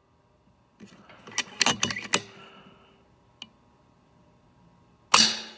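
FX Crown .25-calibre PCP air rifle being recocked: a quick run of metallic clicks about a second in as the side lever cycles the next pellet. A single sharp shot goes off near the end.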